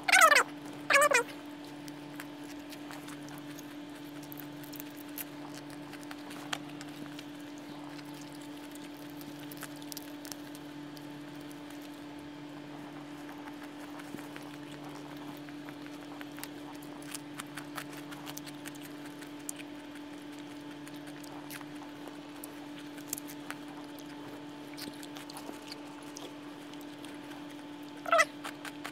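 Faint crunching and chewing of someone eating raw leafy greens and prawns, scattered small clicks over a steady electrical hum. Two short high calls falling in pitch come right at the start, and one more near the end.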